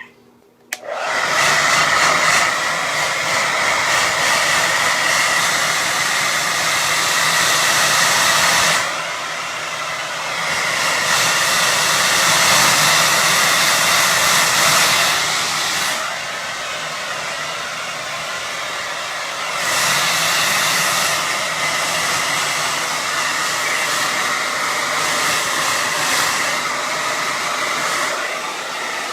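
Hand-held hair dryer switched on about a second in, then blowing steadily with a faint motor whine. It gets louder and softer several times as the dryer is moved over a cat's fur.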